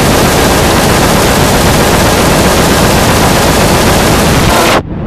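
Very loud, heavily clipped static-like noise from the 'G Major' audio-distortion effect, with no clear speech or tune in it. It cuts out suddenly near the end.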